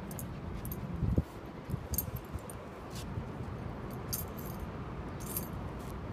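Light metallic jingling: short clinks of small metal pieces that come in little clusters several times, over a steady low rumble, with a sharp thump about a second in.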